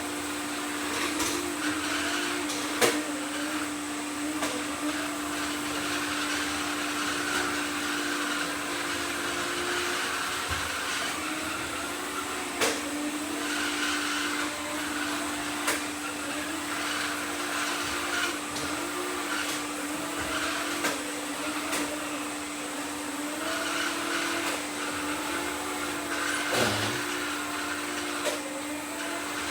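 Several robot vacuum cleaners running at once: a steady motor hum with many short whirring rises and falls in pitch as their wheel and brush motors work, and now and then a sharp knock.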